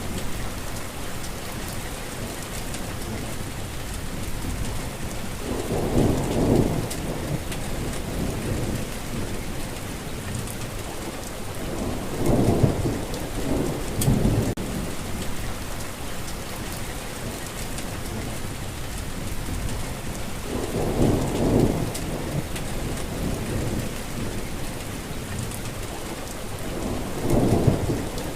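Steady rain falling, with rolling thunder: low rumbles swell up four times, about 6 s, 13 s, 21 s and 28 s in, each lasting a second or two.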